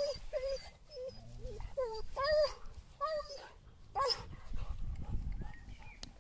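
Dog giving a string of short, high-pitched yelping cries, several close together at first and then spaced out, ending about four seconds in.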